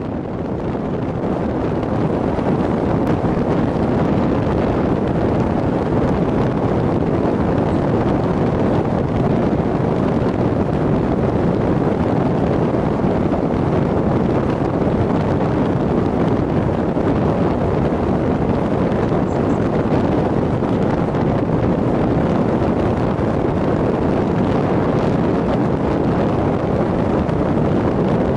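Polaris Slingshot three-wheeler driving at steady road speed: a loud, even rush of wind over the microphone mixed with engine and tyre noise, swelling over the first couple of seconds and then holding steady.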